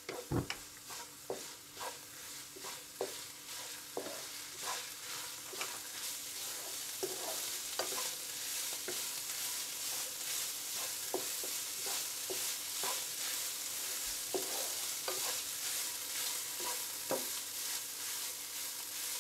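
Minced meat (keema) frying and sizzling in a nonstick frying pan while a wooden spatula stirs it, with a steady hiss and repeated light scrapes and taps of the spatula against the pan, one or two a second.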